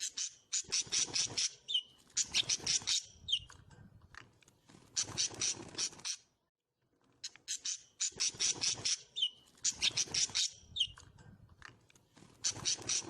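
Pet cage birds calling in repeated bursts of rapid, harsh chirps, about a second at a time with short pauses between, now and then with a short whistled note.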